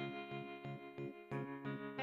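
Instrumental background music with evenly paced notes, about four a second.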